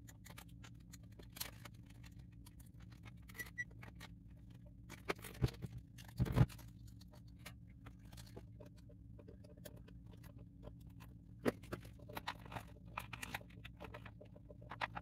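Small handling noises of a battery pack and test probes on a workbench mat: scattered light clicks, taps and scrapes, with a couple of louder knocks about five and six seconds in, over a faint steady low hum.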